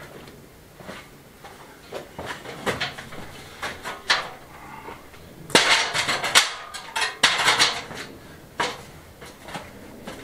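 Aluminium stepladder clanking and rattling as it is set up against a wall, with a burst of loud metallic clattering about halfway through, then a few single knocks as it is climbed.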